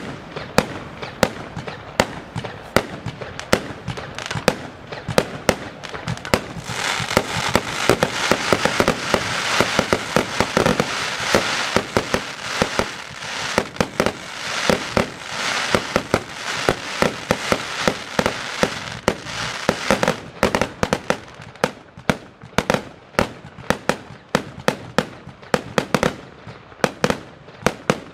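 Consumer firework batteries firing a rapid series of sharp bangs, several a second. From about 7 to 20 seconds in, a dense continuous rush of noise fills in under the shots, then the separate bangs return.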